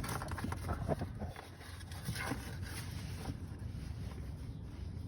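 Scattered light clicks and rustles of handling over a steady low hum.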